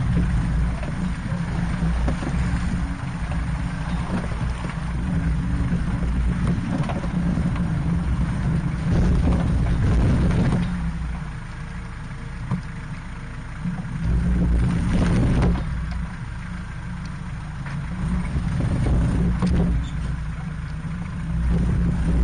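Off-road vehicle's engine running at low speed as it crawls along a muddy, rocky trail, the low rumble rising and falling, with a few louder bursts of noise from the rough ground along the way.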